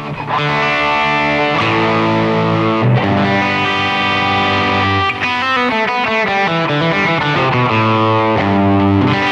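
Les Paul Custom electric guitar through an amplifier playing a slow run of chords. Each chord is left to ring for one to three seconds before the next.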